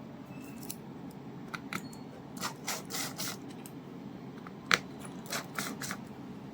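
Small clicks and scrapes of hand tools and plastic parts being worked on an opened mobile phone, several quick ones in a row, with one sharp click a little under five seconds in.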